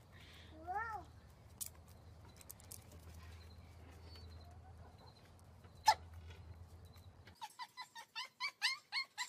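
A rooster gives one short cluck about a second in; near the end a small dog starts yapping rapidly, short high yips about four a second.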